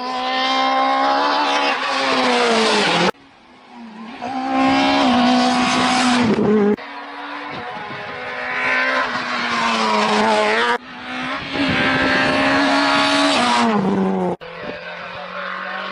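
Rally cars driven flat out one after another, engines revving high through the gears with their pitch rising and then falling as they lift off. Short clips are cut together, so the sound changes abruptly about every three to four seconds.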